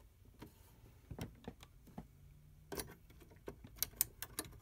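Faint, scattered clicks and taps of a Star SP700 printer's print ribbon carriage being handled and seated onto its mounting pins in the printer's chassis, coming thicker in the second half.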